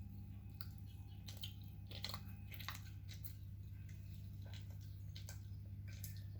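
A person chewing and biting finger food, with soft wet smacks and small crunches scattered through, over a steady low hum.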